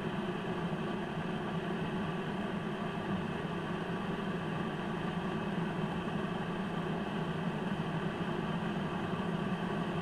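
Black plastic electric kettle with its water at a rolling boil, bubbling with a steady, unchanging low rumble.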